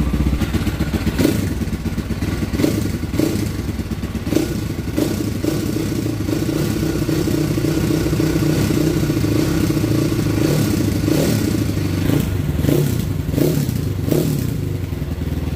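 Trailmaster TM38 300 dirt bike's single-cylinder four-stroke engine running steadily, with about a dozen short, sharp blips through it, most of them in the second half.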